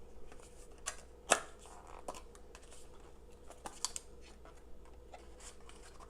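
Small cardboard product box being opened and handled: scattered light clicks, scrapes and paper rustles, with one sharper click about a second in.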